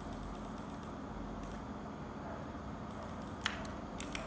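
Keystrokes on a backlit computer keyboard: a few sharp clicks near the end, the first the loudest, over a steady low hum.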